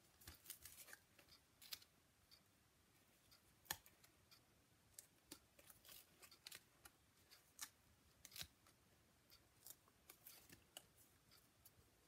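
Faint, scattered ticks and crinkles from a clear plastic sheet of foam adhesive dimensionals as the dots are peeled off and pressed onto the back of a paper die-cut.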